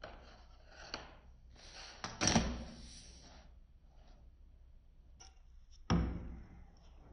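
Sheets of white card being handled: rustling, brushing scrapes, and two sharp knocks as a piece is set down, the louder one about two seconds in and another near the end.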